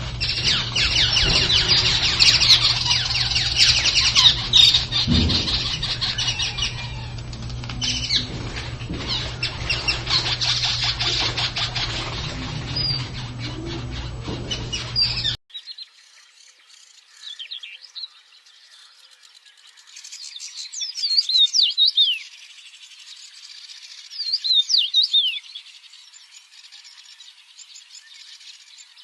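Birds: a dense chorus of rapid chirping over a steady low hum, which cuts off suddenly about halfway through. After the cut comes quieter bird song, short phrases of falling whistled notes repeated about every four seconds.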